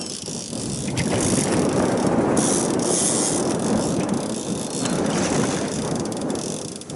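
Fishing reel ratcheting with rapid, steady clicking while a hooked young yellowtail (mejiro) is fought on a hard-bent rod.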